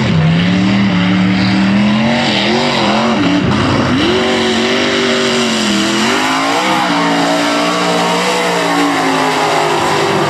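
Lifted mud-racing truck's engine revving hard at high throttle, its pitch climbing and dropping several times as it races down the dirt track.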